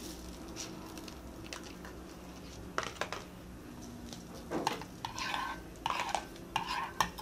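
Spoon stirring a glue-and-bead slime mixture in a clear bowl, scraping and clinking against the bowl in repeated strokes that start about halfway through, after a couple of light clicks.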